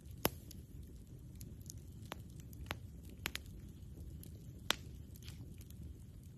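Campfire burning with a low steady rumble and scattered sharp wood pops, about five in all, the loudest just after the start and just before five seconds in.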